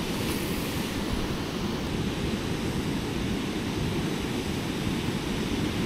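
Steady rush of water pouring through a dam's spillway gates, a constant low roar with no breaks.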